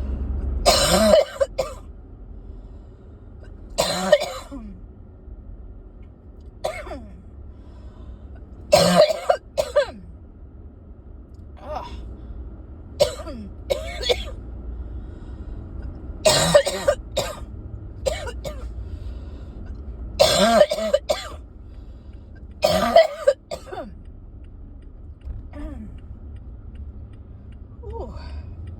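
A person coughing in repeated fits: about seven loud coughs a few seconds apart, some coming in pairs, with smaller coughs and throat clearing between them. It is a lingering cough that won't clear.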